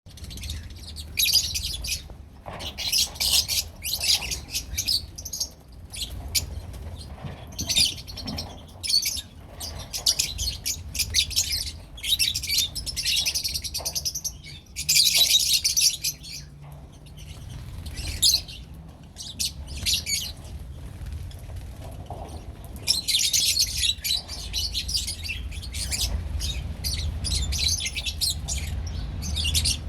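Lovebirds chirping in rapid, shrill bursts of chatter that come in bunches every second or two, over a steady low hum.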